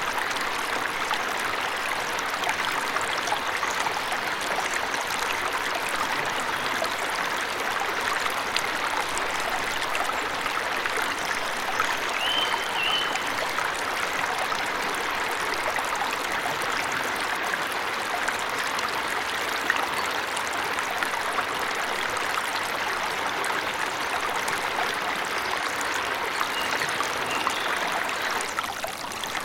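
Waterfall rushing steadily in a forest, with a few short bird chirps about twelve seconds in and again near the end.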